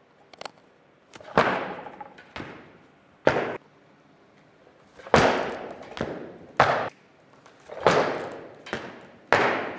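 Loaded Olympic barbell with bumper plates during clean and jerk lifts: a series of heavy thuds and clanks as the bar is caught, jerked and dropped on the lifting platform, the plates rattling after each hit. The loudest hits come about a second in, about five seconds in and about eight seconds in.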